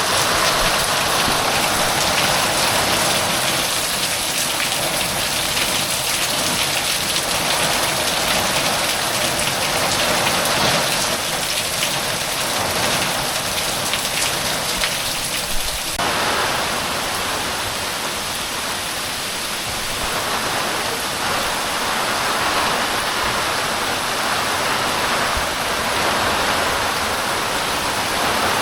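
Heavy rain pouring down, a dense steady hiss that swells and eases every few seconds.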